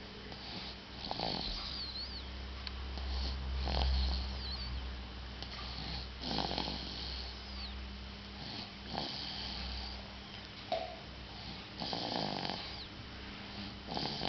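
Snoring in slow, regular breaths, one about every two and a half seconds, with a thin high whistle gliding down on some of them.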